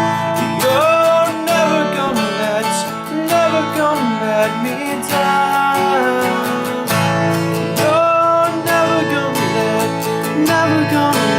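Music: strummed acoustic guitar with a gliding melody line that may be a singing voice.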